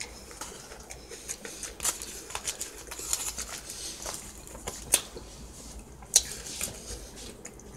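Aluminium foil crinkling and rustling as a sandwich lying on it is handled, with irregular small clicks and a couple of sharper crackles in the later part.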